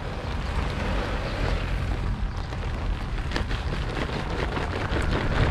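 Wind buffeting the microphone: a steady low rumble and hiss, with scattered light ticks and rustles from about two seconds in.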